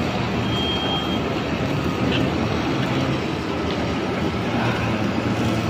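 Shielded metal arc (stick) welding with an E6013 electrode on a steel pipe flange: the arc crackles and sizzles steadily without a break.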